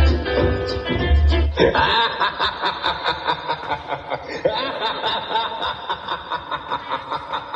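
Recorded music with a heavy beat cuts off about 1.7 seconds in. A long, steady, mocking 'ha-ha-ha' laugh follows, about three pulses a second: a devil's evil laugh.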